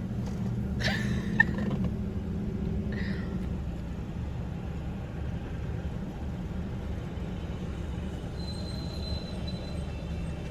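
Idling car heard from inside the cabin: a steady low hum, with two short higher sounds about one and three seconds in and a thin high tone coming in near the end.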